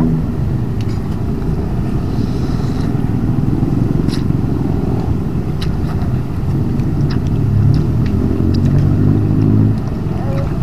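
A motor vehicle engine running steadily with a low hum, growing louder about seven seconds in and easing near the end. A few light clinks come through, typical of a metal fork against a ceramic bowl.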